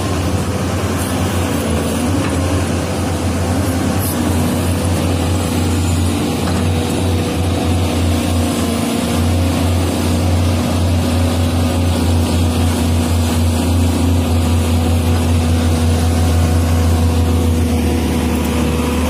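SANY crawler excavator's diesel engine running steadily at working revs, a loud continuous drone, growing slightly louder near the end.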